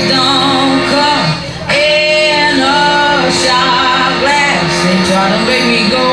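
Loud pop music with a singer, the sound dipping briefly about a second and a half in before the song carries on.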